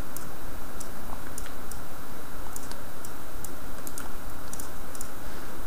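Light, irregular clicks of a computer keyboard and mouse, scattered over a steady background hiss.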